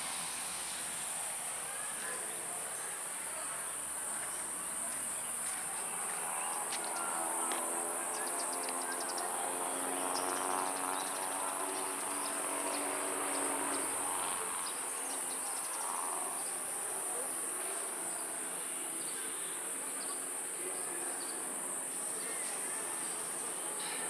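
Chorus of insects making a steady high-pitched drone throughout. From about a third of the way in, a lower hum with several steady tones rises and fades beneath it for about eight seconds.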